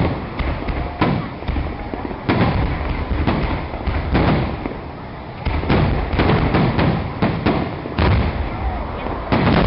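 Fireworks bursting in a dense, irregular series of loud bangs, some coming in quick clusters, with crackling and rumble trailing after each.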